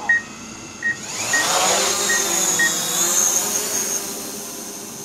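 DJI Mavic Pro quadcopter on DJI low-noise propellers spinning up and lifting off, its motors and propellers whining and rising in pitch about a second in, then easing off a little as it climbs. Short beeps sound several times over the first few seconds, the kind the DJI Go app gives at takeoff.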